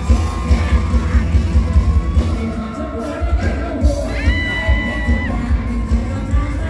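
Live concert music over a PA with a pounding bass beat, and a crowd cheering and screaming. A high note is held for about a second, about four seconds in.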